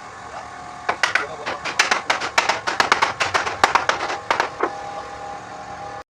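A rapid, irregular series of sharp knocks or taps, about five a second for nearly four seconds, over a steady background hum that cuts off suddenly near the end.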